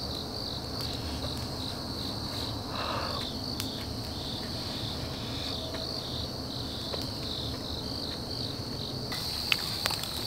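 Crickets chirping steadily: a high chirp that pulses a few times a second.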